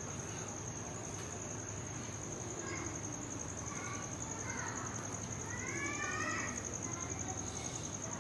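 A cricket trilling steadily: one high, evenly pulsed note that doesn't let up.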